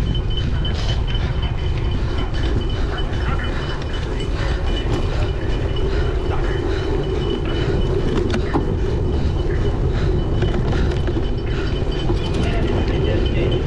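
Wind buffeting the microphone in a steady low rumble, over the rattle and clicks of a cyclocross bike riding a dry, bumpy course.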